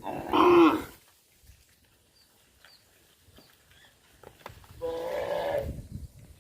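Cattle mooing: a loud call in the first second, then a second moo about five seconds in after a quiet pause.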